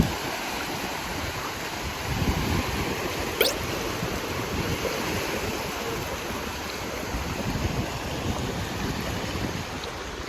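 Lake waves washing on the beach, with wind buffeting the microphone. A brief rising tone sounds about three and a half seconds in.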